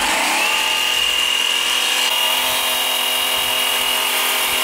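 Einhell cordless electric chainsaw running: its motor whine climbs as it spins up in the first half second, then holds a steady high pitch at full speed.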